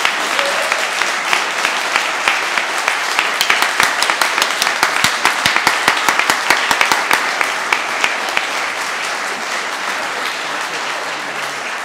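Audience applauding, dense clapping with a few close, sharp individual claps standing out. The applause eases a little over the last few seconds.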